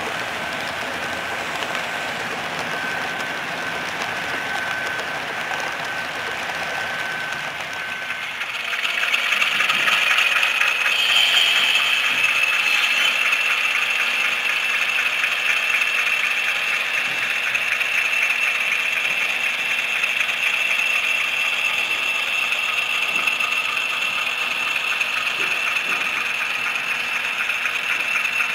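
HO-scale model freight trains running: a steady mechanical running hum and rattle of the models on the track. About nine seconds in it turns louder and a steady high whine sets in and holds.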